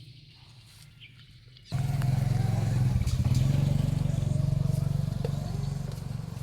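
An engine running steadily at an even pitch, cutting in abruptly about two seconds in after a quiet start with a few faint clicks.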